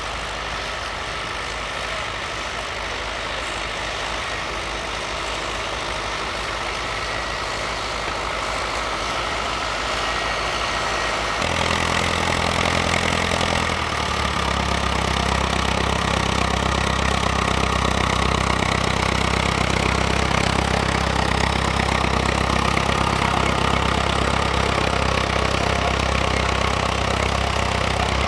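Farm tractor diesel engines working in the field: first a Ford tractor pulling a cultivator, heard more distantly, then a County four-wheel-drive tractor working under load. About eleven seconds in, the sound switches to a louder, closer and deeper steady engine note.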